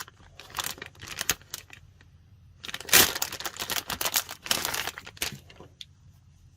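Plastic packaging of a squishy crinkling and rustling as it is handled and opened: a few light clicks first, then a longer spell of crinkling, loudest about three seconds in.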